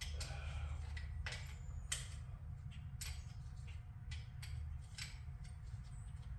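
Scattered light metallic clicks and taps of hand tools and parts being handled while working a motorcycle clutch cable loose, over a steady low hum.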